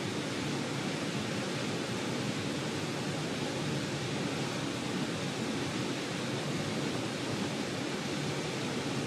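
Steady, even rushing noise with no tones or separate events.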